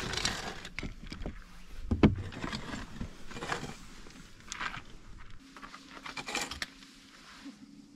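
Irregular knocks, scrapes and clatters of objects being handled, with one loud thump about two seconds in; a faint steady low hum sets in past the middle.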